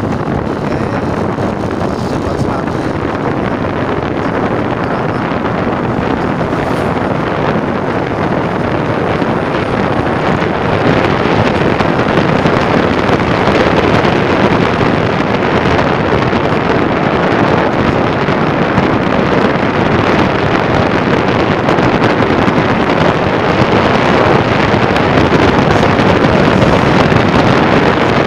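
Wind rushing over the microphone of a camera riding on a vehicle moving along a paved road: a steady, loud rushing noise that grows somewhat louder about ten seconds in.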